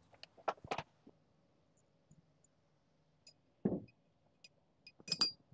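Metal parts being handled: a few light clicks, a dull knock a little past the middle, then a sharp metallic clink with a short ring near the end.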